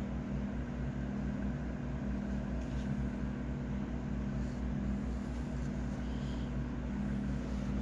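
Steady low hum with a light hiss, with a few faint rustles of T-shirt fabric being handled.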